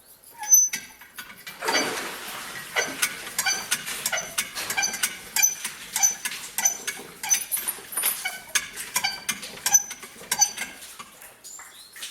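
A hand-cranked well windlass squeaking rhythmically, about two squeaks a second, as a bucket of water is wound up, after a sharp knock near the start.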